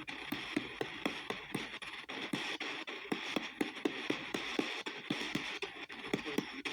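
P-SB7T spirit box sweeping the AM band at 250 ms per station, played through a spout attachment. It makes a steady static hiss chopped about four times a second, with brief snatches of radio broadcast in the chops.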